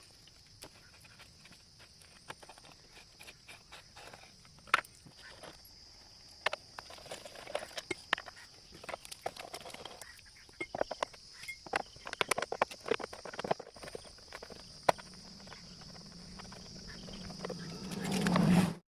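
Scattered clicks and metal taps of a hand spanner and screws being worked on a Yamaha FZ's chain cover, over a steady high trill of crickets. The sound swells near the end and cuts off suddenly.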